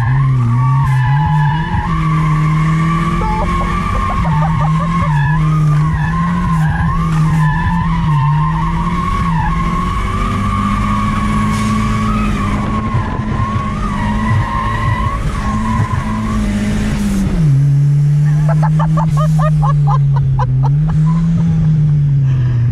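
Turbocharged Chevrolet Chevette engine revving up and down under throttle while the tyres squeal continuously through a drift. About sixteen seconds in, the squeal stops and the engine drops to a lower, steadier note.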